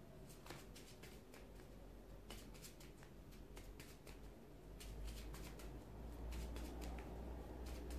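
Quiet room with faint, scattered light clicks and rustles, and a low rumble that grows louder about five seconds in.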